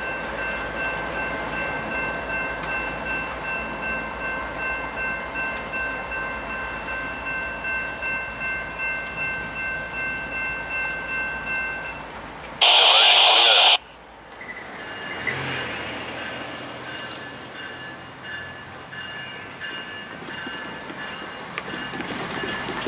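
Railroad crossing bell ringing steadily, pulsing about twice a second, over the rumble of a Union Pacific double-stack intermodal freight train rolling past. About halfway through comes a loud blast lasting about a second, followed by a fainter bell and a locomotive's low hum.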